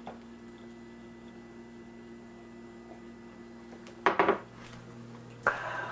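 A faint steady hum, then about four seconds in a loud clatter as a wooden kitchen cabinet door is handled, and a second knock and rattle near the end.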